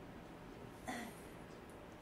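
A woman gives one short pained grunt about a second in, slightly falling in pitch, as strong hand pressure is pushed into her hip and buttock.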